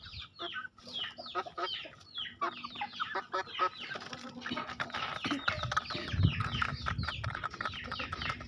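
A group of three-month-old Bangkok game chickens calling continuously with quick, falling cheeps while they feed. A low rumble joins in about six seconds in.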